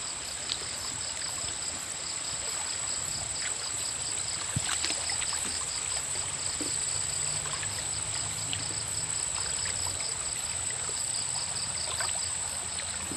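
Shallow stream water trickling and sloshing as someone wades slowly through it, with a few small splashes. Night insects chirr steadily at a high pitch over it.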